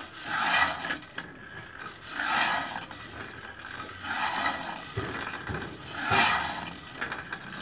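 A kukri blade being sharpened by hand: four slow, even strokes, about one every two seconds.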